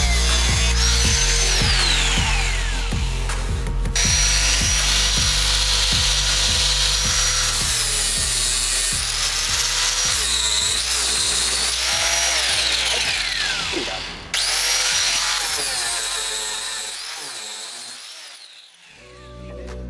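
An electric power tool working wood, heard under background music; the sound fades out near the end.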